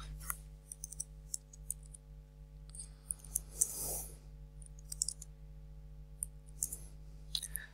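Computer keyboard keys clicking as a terminal command is typed: scattered single keystrokes with pauses between them, and a brief rustle about halfway through.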